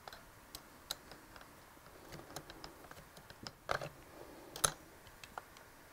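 Scattered light clicks and ticks of small hand tools and a plastic caliper handled against a transaxle's housing while its spring is adjusted. The loudest clicks come a little under four seconds in and about a second later.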